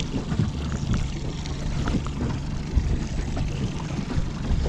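Small anchored boat rocking on the water: water slapping against the hull, with a faint steady low hum and scattered small knocks.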